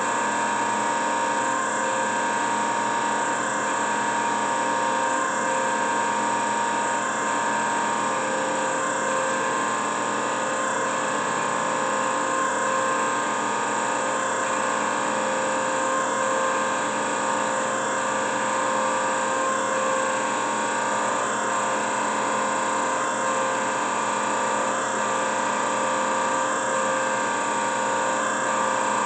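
TOS BPH20 surface grinder running under power: the wheel spindle motor and hydraulic unit give a steady hum and whine with a faint regular pulse, as the table traverses in its automatic cycle.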